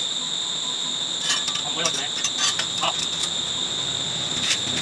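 Light metal clinks and knocks, about five in all, as the steel tines of a rotary tiller are shifted on a concrete floor, over a steady high-pitched chirring drone.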